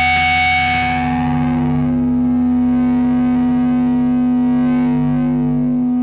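Distorted electric guitar holding one chord that rings out steadily: the closing chord of a rock song.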